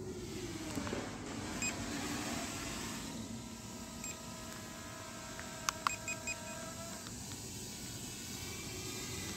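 Short electronic beeps over a steady outdoor background hum: single beeps twice early on, then a quick run of four about six seconds in, the loudest sounds here. Under them a steady hum of several tones holds for a few seconds and stops about seven seconds in.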